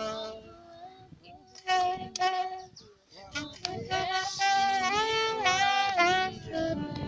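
Music with a high voice singing long held notes that slide in pitch.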